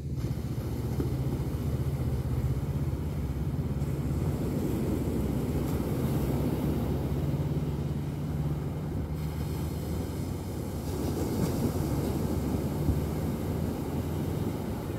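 Small sea waves washing onto a sandy beach in a steady surf hiss, with a steady low hum underneath.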